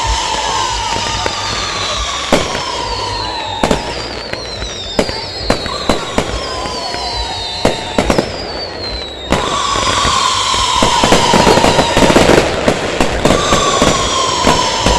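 Aerial fireworks display: whistles that fall in pitch, sharp bangs of bursting shells every second or so, and from about ten seconds in a dense crackling that grows louder.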